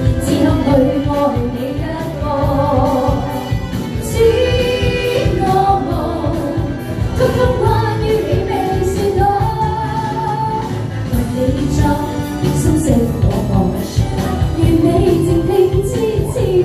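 A woman singing a pop song live into a handheld microphone over a karaoke backing track with a steady beat.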